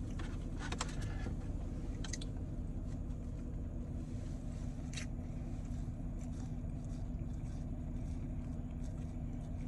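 Steady low hum of a car engine idling, heard inside the cabin. A few brief soft clicks and rustles of a soft-bun sandwich being bitten and chewed sound over it, about a second in, two seconds in and halfway through.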